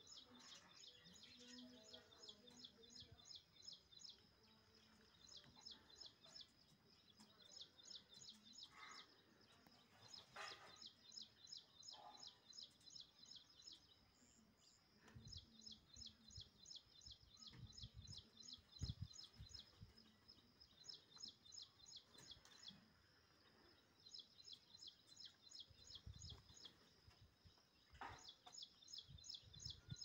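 Faint birdsong: runs of rapid, high, evenly repeated chirps, about four a second, each run lasting a few seconds and coming back again and again. A few short, harsher, lower calls come in between, and a few low rumbles come partway through.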